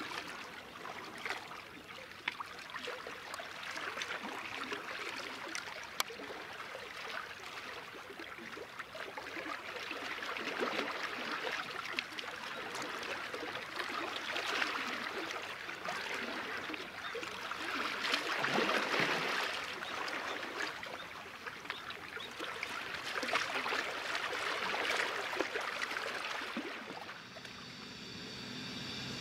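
Small waves lapping and splashing at the water's edge, rising and falling every few seconds. Near the end a steady hum with several tones comes in.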